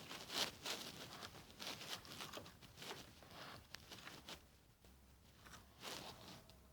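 Faint irregular rustling and scratchy handling noises, denser in the first few seconds and thinning out later.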